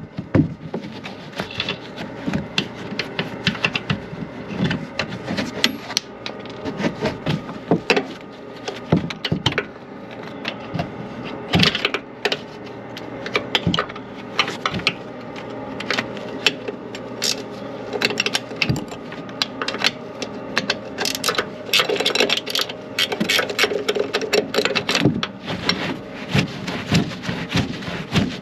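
Hand socket ratchet clicking in runs as suspension nuts and bolts are backed out, with metal tools and parts clinking and knocking between runs.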